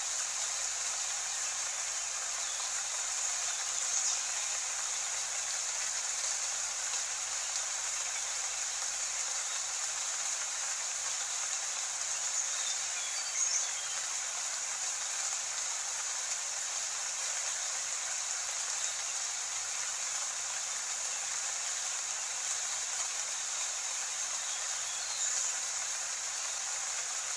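Steady rain sound, an even hiss, with a few faint short ticks over it now and then.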